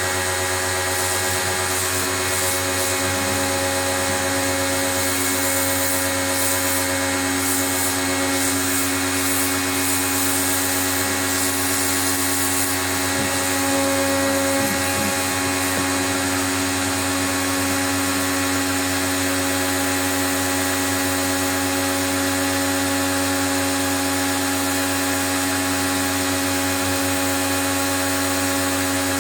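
Pro-Kleen 1600 electric pressure washer running steadily, its motor and pump giving a constant hum and whine under a hiss.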